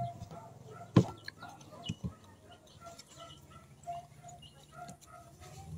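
Chickens clucking: a steady run of short calls throughout. A few sharp clicks cut through, the loudest about a second in and two more close together about a second later.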